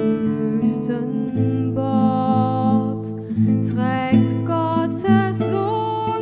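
A woman singing a slow German Advent song in a clear, sustained voice, accompanied by a nylon-string classical guitar played with plucked chords.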